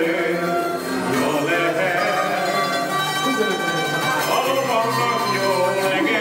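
Three Hungarian zithers (citeras) played together in a tune, their plucked strings ringing on without a pause.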